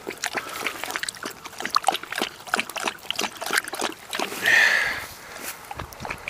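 Dry dirt and grass crackling and scraping as soil is worked loose and rubbed off a freshly dug stone piece by hand: irregular small crackles throughout, with a short hissing noise about four and a half seconds in.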